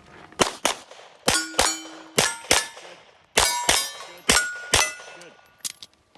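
Rapid pistol fire, about eleven shots mostly in quick pairs. Several shots are followed by a clang and a ringing tone, the sound of steel targets being hit.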